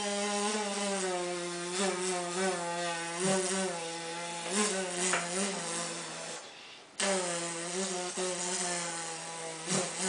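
A person imitating a housefly by mouth: a sustained, low, wavering buzz with one short break about six and a half seconds in.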